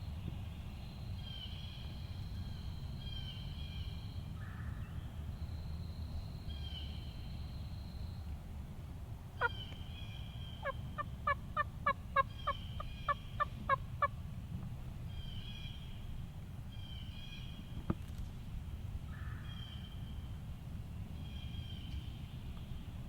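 A series of about ten turkey yelps, evenly spaced at roughly three a second, coming after a single sharp note, with songbirds singing throughout.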